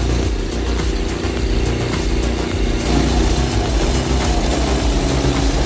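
Engine of a large hydraulic log splitter running steadily, its note shifting about three seconds in.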